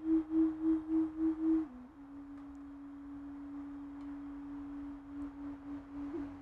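Singing bowl sounding one sustained pure tone that pulses about three times a second. A little under two seconds in, the pitch drops slightly and the tone carries on steadier and softer.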